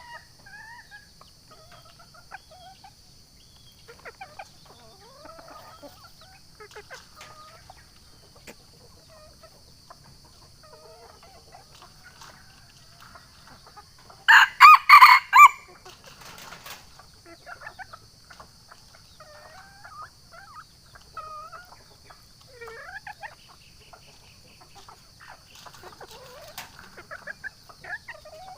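Junglefowl rooster crowing once, loud, in about four quick pulses, about halfway through. Faint clucks and scattered bird calls come and go around it over a steady high-pitched hiss.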